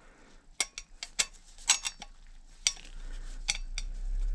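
Irregular light metallic clicks and clinks of oval bicycle chainrings knocking together as the small 30-tooth inner ring is fitted by hand behind the 46-tooth outer ring. A low rumble joins in from about three seconds in.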